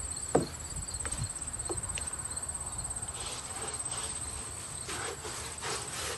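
Paintbrush strokes swishing over wooden stair boards, several short strokes in the second half, over a steady high, rapidly pulsing insect chirp. A single knock sounds about half a second in.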